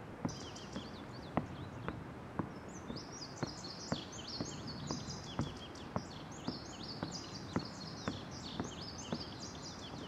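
Footsteps on the wooden deck of a footbridge, about two steps a second, with birds singing quick high chirps, sparse at first and dense from about three seconds in.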